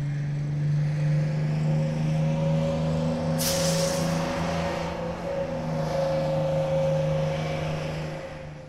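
Truck engine sound effect running steadily, with a short burst of hiss about three and a half seconds in.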